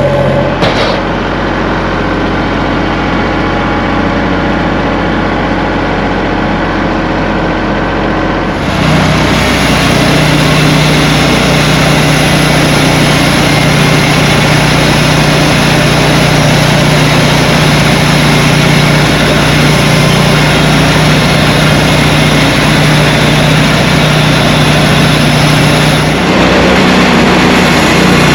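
An engine running steadily, then speeding up and getting louder about nine seconds in, and holding at the higher speed.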